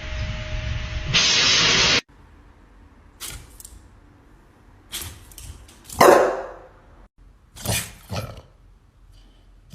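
A steady rushing noise that cuts off abruptly about two seconds in, then a dog barking several short, separate times, loudest about six seconds in.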